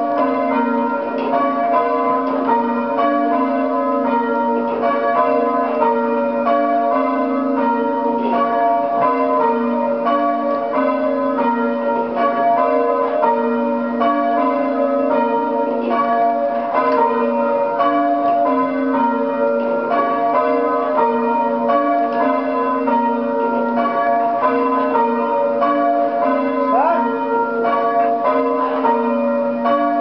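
A ring of three 17th-century church bells (tenor about 8 cwt) being rung full-circle in change ringing, the bells striking one after another in a steady, continuous sequence, heard from the ringing chamber below them.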